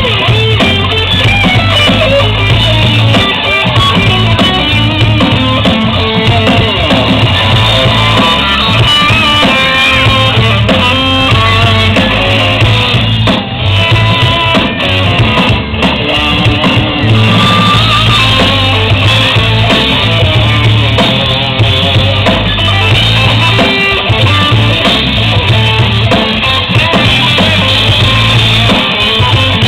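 Live band playing, with guitar and drum kit over a strong bass line.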